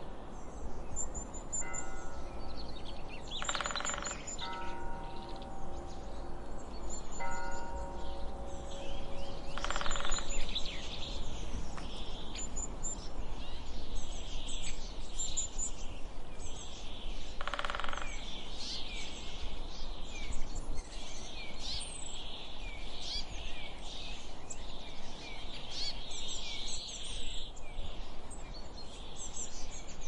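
Birds chirping and singing, many short calls overlapping, over a steady background rush of outdoor noise. A few soft held tones sound in the first several seconds.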